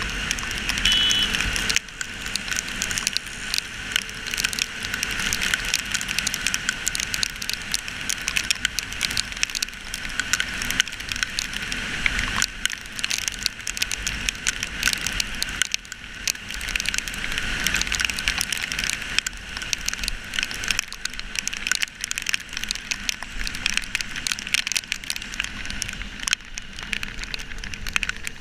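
Heavy rain spattering and crackling against a GoPro Hero3's camera housing on a moving motorcycle, a dense steady patter of countless small drop hits over wind and wet-road noise.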